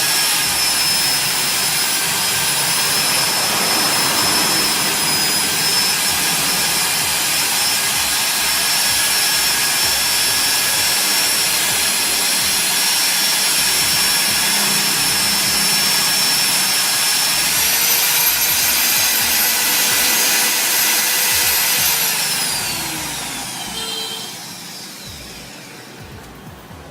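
Nitto AO5575A magnetic drill's electric motor running with a steady high-pitched whine. The whine rises in pitch about two-thirds of the way through, then winds down and fades as the motor spins to a stop near the end.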